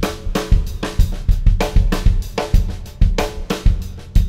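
Drum kit playing a steady groove: bass drum, snare, hi-hat and cymbals, with strong hits about twice a second and lighter strokes between.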